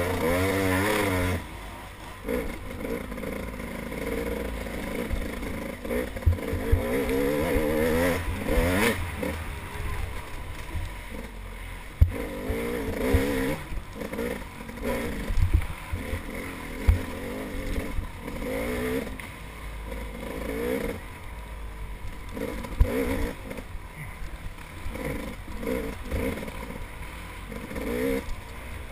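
Dirt bike engine revving up and down hard under racing load, with sharp knocks and clatter as the bike jolts over ruts and roots.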